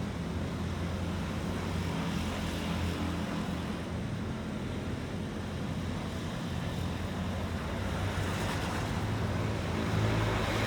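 Road traffic: vehicle engines running and tyres passing in a steady low drone that gets louder near the end.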